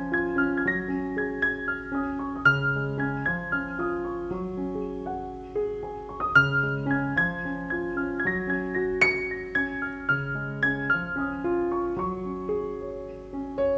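Background piano music: a gentle melody of single struck notes over a repeating low bass figure.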